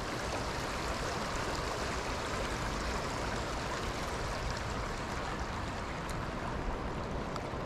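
Shallow river water running fast over a stony riffle: a steady rushing and babbling of the current.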